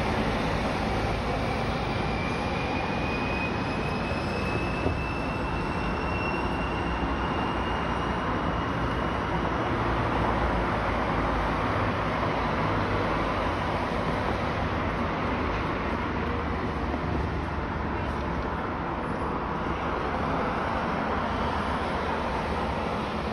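Steady city noise, a constant rushing hiss, with a faint whine slowly rising in pitch during the first ten seconds.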